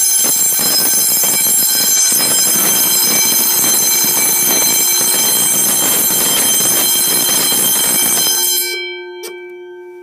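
Fire alarm bell ringing continuously and loudly during a weekly alarm test, then cut off abruptly about eight and a half seconds in when it is silenced at the fire alarm control panel. A few tones fade out after it stops, with a single click about a second later.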